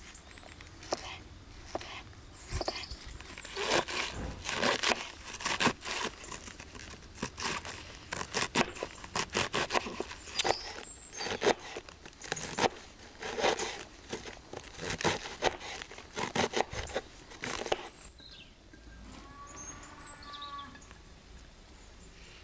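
Kitchen knife shredding a cabbage wedge on a wooden cutting board: a run of crisp, quick cuts in uneven bursts, which stop a few seconds before the end.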